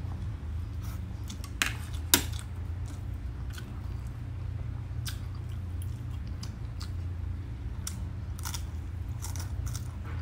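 A person chewing and crunching mouthfuls of crispy roast pork and rice, with scattered short mouth clicks over a steady low hum. Two sharp, louder clicks come about one and a half and two seconds in.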